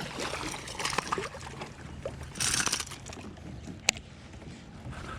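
Water splashing and sloshing against a fishing kayak, with scattered small knocks, a brief hissing splash about halfway through and a single sharp click near the end.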